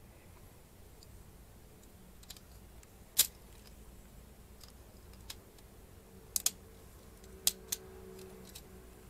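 LEGO Technic plastic parts clicking and snapping as pieces are pressed together by hand. One sharp snap about three seconds in, a quick pair of clicks around six and a half seconds, two more a second later, and faint handling taps between.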